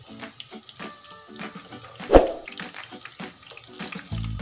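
Onion rings deep-frying in hot oil, a steady crackle of popping bubbles, with one sharp knock of the metal tongs against the pan about two seconds in as the rings are turned. Music comes in near the end.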